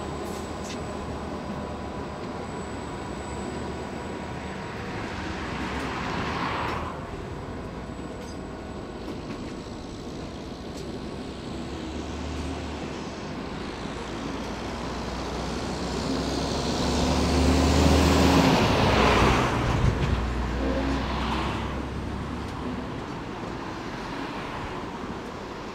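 Freight train of loaded stone hopper wagons rolling past on the rails below, a steady rumble. A louder passing swell comes about two-thirds of the way through.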